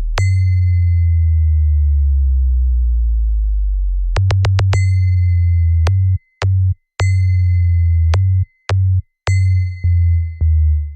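Electronic DJ sound-check track testing humming vibration bass: long, very deep bass hum tones that step in pitch, with a ringing bell-like ping near the start and a quick run of clicks about four seconds in. From about six seconds the bass is chopped into short stabs that cut off abruptly, with brief gaps between them.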